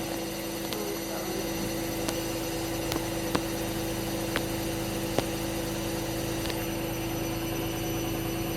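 Hoover H-Wash&Dry 300 washer dryer on a spin cycle at 800 RPM: a steady motor hum and whir with a few light ticks from the drum, cutting off abruptly at the end.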